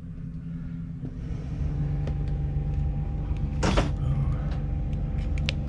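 Boat's air-conditioning units starting up as their panel buttons are pressed: a steady low hum that grows louder about a second and a half in, with sharp push-button clicks and a short scrape near the middle.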